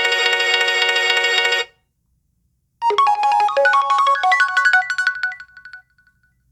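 HTC One M8 stock ringtones: a dense sustained synthesized chord cuts off about a second and a half in. After a short pause, a quick melodic ringtone of bright stepping notes plays for about three seconds and dies away.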